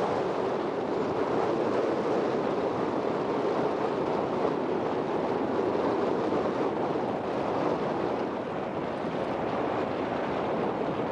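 Steady noise of distant traffic from an elevated highway, an even outdoor rumble with no distinct events.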